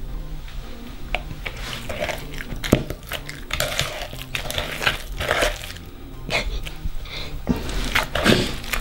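A wire whisk beating an egg into creamed butter and sugar in a plastic mixing bowl: irregular scraping and clicking of the whisk against the bowl.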